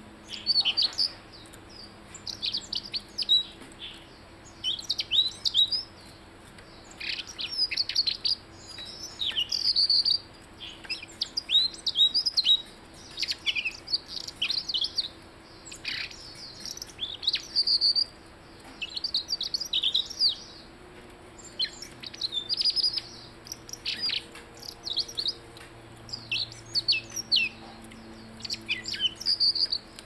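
Caged blue-headed robin (robin kepala biru) singing: bursts of quick, high chirping notes, many sliding down in pitch, repeated every second or two. A faint steady low hum runs underneath.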